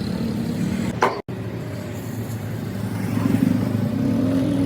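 A motor vehicle's engine running steadily, its pitch rising a little in the second half. There is a sudden break about a second in.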